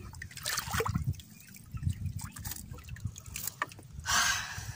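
Water dripping and trickling from a wet fishing net as it is pulled in over the side of a boat, with a louder splash of water about four seconds in.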